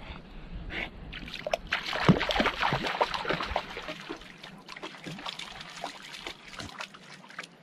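Shallow water splashing and trickling right at the microphone, with irregular splashes from a dog wading through it. The splashing is busiest a couple of seconds in and thins toward the end.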